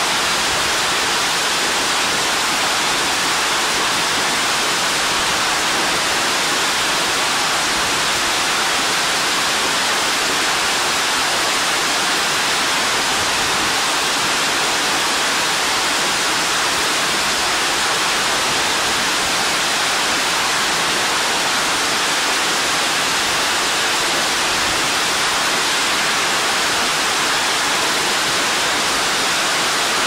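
Hōryū Falls, a tall waterfall plunging into its pool: a steady, dense rush of falling water that never changes.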